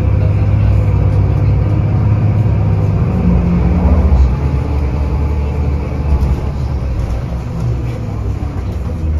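Cabin sound of a 2001 Nova LFS city bus under way: its Cummins ISC diesel engine and drivetrain give a steady low rumble with road noise. A brief rising whine comes about three to four seconds in.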